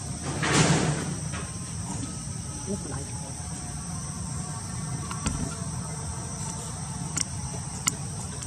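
Steady high-pitched insect chorus. About half a second in there is a short, louder burst of noise, and a few faint clicks come later.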